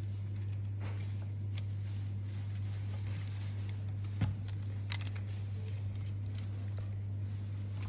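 A steady low hum with a few light clicks and taps, the two sharpest about four and five seconds in, typical of plastic Lego Technic parts being handled.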